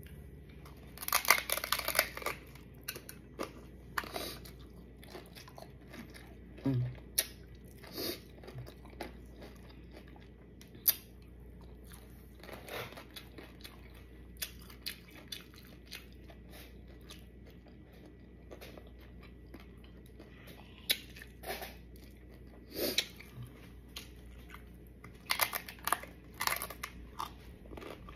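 Biting into and chewing tacos, with crunchy bites in irregular clusters: the loudest come about a second in and again in the last few seconds, with quieter chewing between.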